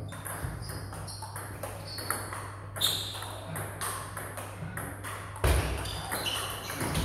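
Table tennis balls clicking off bats and tables in quick, irregular succession, over a steady low hum. A heavier dull thump comes about five and a half seconds in.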